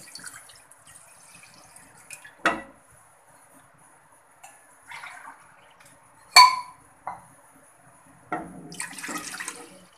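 Milk poured from a pitcher into a metal pot, splashing as it runs in, with light clinks of pitcher and pot. One loud, sharp ringing clink comes about six seconds in, and a second short spell of pouring near the end.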